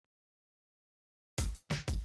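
Silence, then electronic dance music starts about a second and a half in, with a heavy drum-machine beat.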